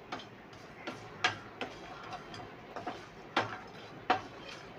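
Whole spices (dried red chillies, fennel, cumin) dry-roasting in a nonstick pan, stirred with a wooden spatula: a faint scraping with about half a dozen sharp, irregular clicks.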